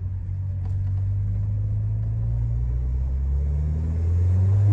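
Peugeot 208 GT's 1.6 turbo four-cylinder engine running with road drone while driving, heard from inside the car; the engine note rises and grows louder near the end as the car accelerates.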